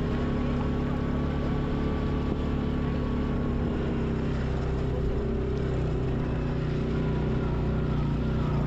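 Quad bike (ATV) engine running steadily under way, its pitch holding even.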